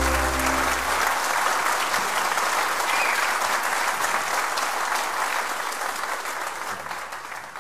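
The band's final chord rings out and stops about a second in, followed by audience applause that fades away near the end.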